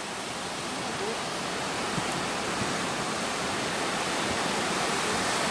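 Big ocean waves breaking at a river-mouth harbour entrance: a steady rushing noise of surf that builds slightly.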